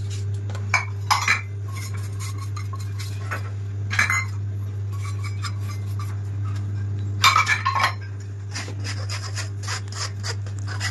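Metal spoon scraping and clinking against a stainless-steel mesh sieve and bowl as flour is pushed through, with a denser run of knocks and scrapes about seven seconds in. A steady low hum lies underneath.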